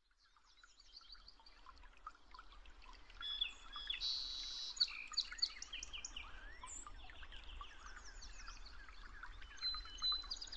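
A chorus of many birds chirping and calling together, fading in over the first couple of seconds. Quick repeated chirps mix with a few rising whistled calls.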